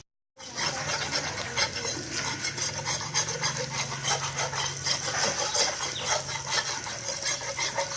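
Catfish meat sizzling and crackling as it cooks, a dense run of rapid crackles with a low steady hum underneath.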